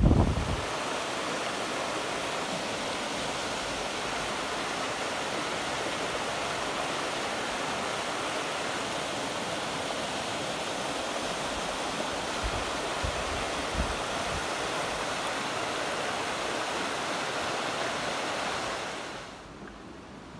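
Fast-flowing river water rushing and churning over a ledge into whitewater, a steady rush of water. A few low wind bumps on the microphone come about two-thirds of the way through, and the rush drops away near the end.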